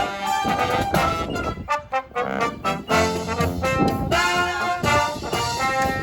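Brass band with trumpets and trombones playing a tune together, thinning out briefly about two seconds in before the full band comes back in.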